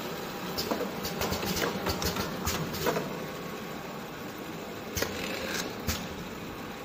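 Automatic jerry-can filling and capping line running: a steady machinery hum with irregular clicks and knocks from the conveyor and its mechanisms, the sharpest about five and six seconds in.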